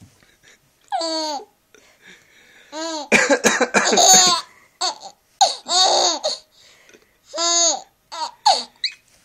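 A man coughing in harsh bursts, and a young child answering with short, high-pitched squealing laughs, about five in all. The coughs are the loudest sounds.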